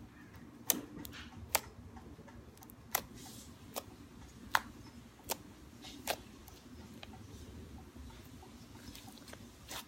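Silver slime being pressed and squished by hand, giving sharp clicking pops at irregular intervals, about eight in all, over a soft background.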